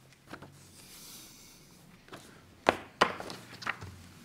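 A handful of light knocks and taps on a tabletop, most of them past the middle, with a soft rustle of a paper sheet about a second in.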